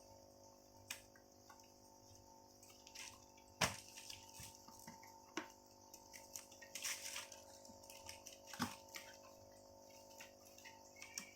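Scattered knocks and clinks of glass oil bottles being handled, with the loudest sharp knock about three and a half seconds in, over a faint steady hum.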